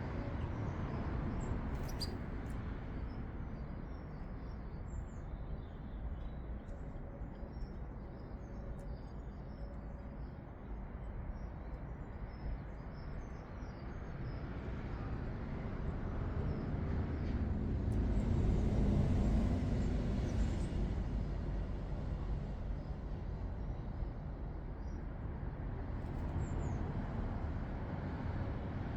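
Steady low rumble of distant road traffic, swelling as a vehicle passes about two-thirds of the way through, with faint, short bird chirps scattered over the first half and again near the end.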